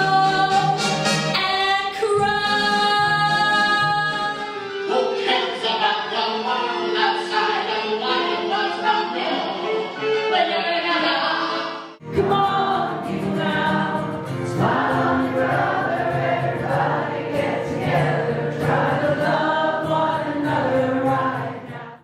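Live stage-musical singing with accompaniment, voices held on sustained pitched notes. About halfway through it cuts off abruptly and a different song starts, again voices singing over accompaniment.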